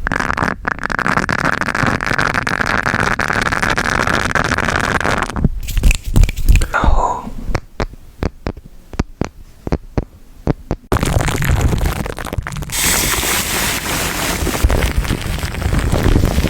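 Kitchen noodle-cooking sounds: about five seconds of steady hissing, then a run of quick sharp knocks and taps, then steady hissing again.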